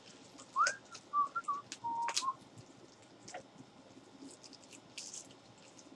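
A person whistling a few short notes: a quick upward slide, some wavering notes, then a held note, all within the first two and a half seconds. Scattered clicks and crinkles of small sample packets being handled are heard throughout.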